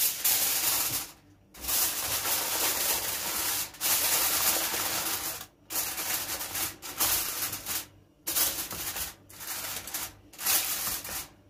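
Aluminium foil crinkling and rustling as hands press and crimp it over the rim of a baking dish, in several stretches broken by short pauses.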